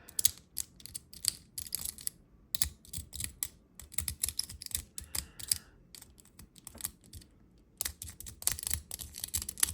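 A tool scraping battery-leak corrosion out of a toy's battery compartment: quick, irregular scratching and clicking strokes, with a short pause about seven seconds in.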